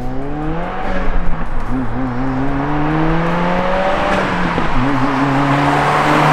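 Muffler-deleted, tuned Subaru WRX with a turbocharged flat-four, accelerating hard toward the camera: the engine note climbs, drops at an upshift about a second in, climbs again, drops at a second upshift about four seconds in, and climbs once more as the car nears.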